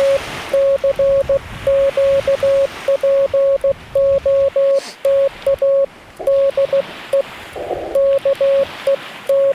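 Morse code from a Yaesu FT-891's CW sidetone: a single steady tone keyed on and off in quick dits and dahs, sent with paddles at 25 watts.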